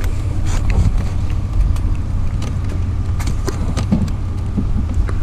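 Van running with a steady low engine and road rumble, with scattered light ticks and rattles.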